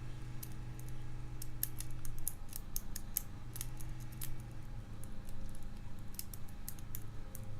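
Lock pick working the pin tumblers of a challenge padlock: faint, irregular small metallic clicks and scrapes, in a cluster during the first half and a few more near the end.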